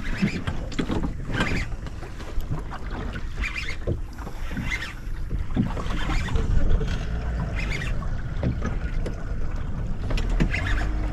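Small fishing boat drifting on open water: a steady wash of water and wind noise with scattered short knocks, and a steady low hum that comes in near the end.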